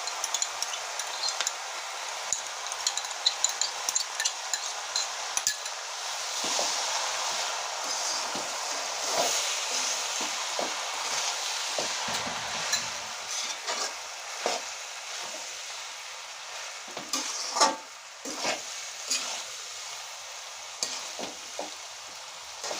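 Chow mein noodles stir-frying on high heat with their sauce just added, sizzling steadily, while a spatula scrapes and knocks against the pan in frequent short strokes, a few of them louder in the second half.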